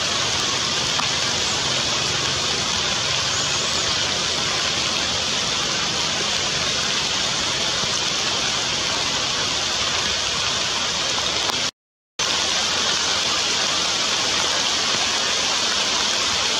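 Heavy rain falling steadily, an even hiss with no let-up. It cuts out to silence for about half a second around twelve seconds in.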